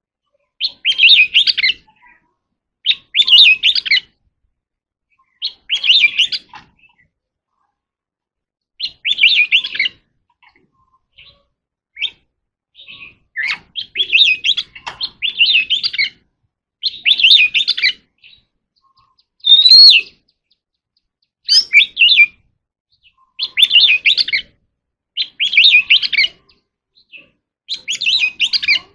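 Oriental magpie robin singing loud, clear whistled song phrases, each about a second long, separated by short pauses, about a dozen phrases in all.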